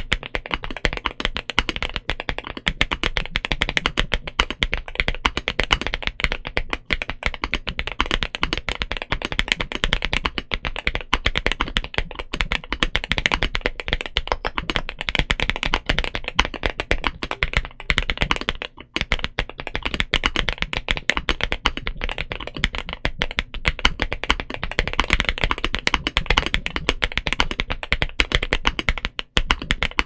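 Steady fast typing on a foam-modded 65% mechanical keyboard (Momoka Zoo65, FR4 plate, PBT keycaps) fitted with 'Silver Bullet' frankenswitches. These are linear switches built from WS Morandi housings and springs with Kailh Turbo Silver stems, and give a deep keystroke sound. There are two short pauses in the typing, one a little past halfway and one near the end.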